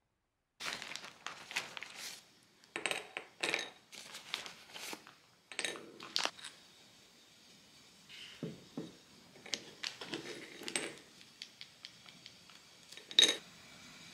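Plastic bag of ghassoul clay crinkling as it is handled, with small hard pieces of solid clay clattering onto a stoneware plate. Softer knocks and ticks follow, and one sharp clink rings out near the end, the loudest sound.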